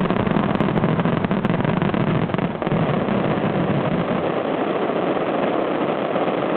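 Star mine fireworks finale: rapid-fire shells bursting and crackling so densely that they merge into one continuous loud noise, with a few sharp bangs standing out in the first couple of seconds.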